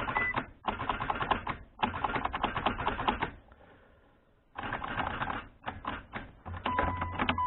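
Mitsubishi Lancer Evolution IX starting circuit chattering, a fast clicking in several bursts with a pause about halfway, as the key is turned and the car fails to start. The worn ignition switch is not making proper contact. A steady electronic chime starts near the end.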